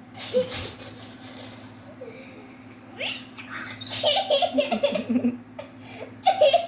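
A person laughing in several breathy bursts, the longest in the middle, over a steady low hum.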